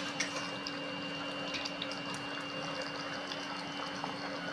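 Beef heart curry simmering in a metal kadai over a gas flame: a steady bubbling hiss with scattered small pops as the gravy is brought to a light boil.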